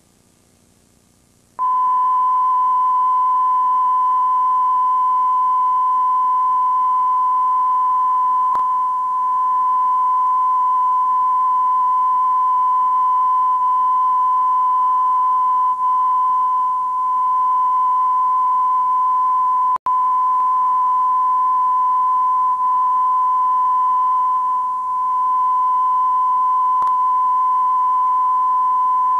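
Steady single-pitch test tone recorded on a VHS tape's audio track, with faint tape hiss under it. It starts suddenly about a second and a half in and breaks off for a split second about twenty seconds in.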